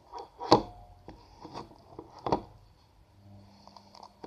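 Slime being worked in its container while it is still sticky and not yet set: a few sharp knocks and taps against the container, the loudest about half a second in and another a little after two seconds, with quieter scraping and squishing in between.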